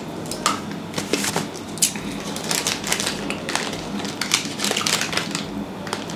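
Plastic chocolate-bar wrapper and its foil inner wrap crinkling in the hands, in irregular quick crackles.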